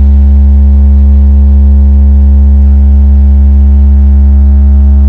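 A loud, steady low-pitched hum with many even overtones and no change in pitch or level.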